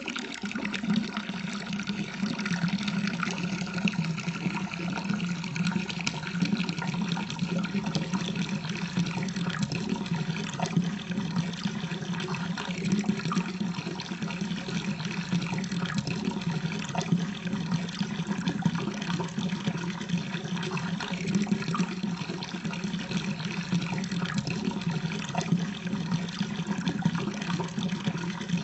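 Urination sound effect slowed to half speed: a steady stream of liquid running into water, unbroken and lowered in pitch.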